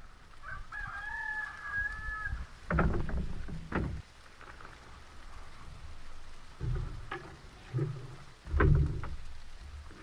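A rooster crows once near the start, one long call lasting about two seconds. Heavy thuds and knocks follow as camping gear is set down on a slatted bamboo deck, the loudest near the end.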